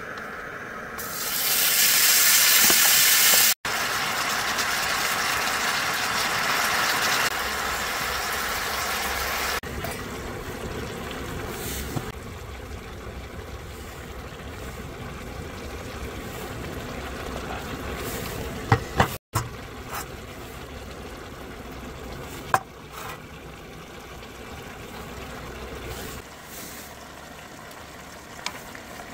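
Food poured onto a hot round griddle pan and frying with a loud sizzle that starts about a second in, settling after several seconds into a quieter steady sizzle. A few sharp clicks of utensils come later.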